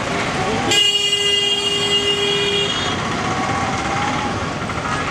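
Road traffic noise with a vehicle horn sounding one steady note for about two seconds, starting about a second in.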